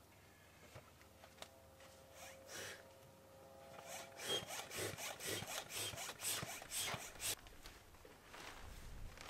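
Hand air pump worked in strokes, each a rasping rush of air, inflating the air beams of an inflatable tent. A couple of slow strokes come first, then a quick run of about three strokes a second that stops a couple of seconds before the end.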